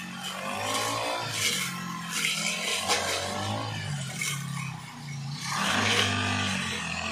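Two-stroke brush cutter running and revving as its blade cuts through tall grass, heard together with background music.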